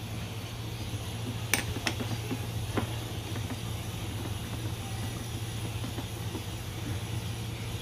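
Brown cooking liquid boiling and foaming in a pan on a gas stove, a steady bubbling hiss over a constant low hum, with a few sharp clicks in the first few seconds.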